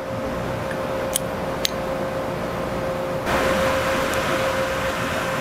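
Steady fan-like room noise with a faint constant hum-tone, turning brighter and a little louder about three seconds in. Two light clicks come about a second in, as steel tool parts are handled.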